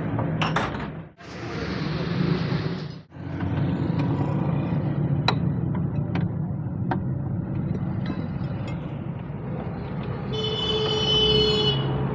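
A car driving with a steady low road and engine rumble. A few sharp knocks come about midway, and a brief high pitched tone sounds near the end.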